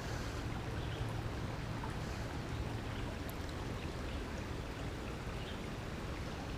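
Steady rush of flowing creek water, even throughout, with a faint low hum in the first few seconds.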